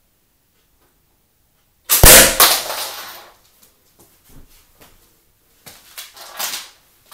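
Slingshot rifle shooting a steel fishing dart from its rubber power band into a door at close range: one loud, sharp crack about two seconds in, the shot and the strike on the door running together, ringing away over about a second. A few faint knocks follow.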